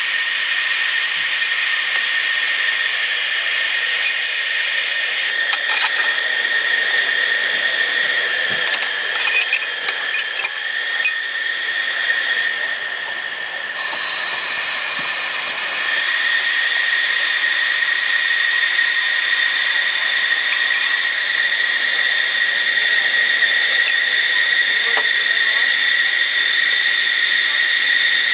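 Live-steam miniature ride-on locomotive hissing steadily as it stands with steam up. About halfway through, the hiss grows louder and fuller as steam jets out low at the front of the engine.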